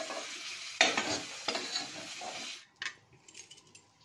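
A metal spatula stirs and scrapes a spice paste sizzling in oil in an aluminium kadai, with a few distinct scraping strokes. The frying stops abruptly about two-thirds of the way through, leaving faint room sound and a single light click.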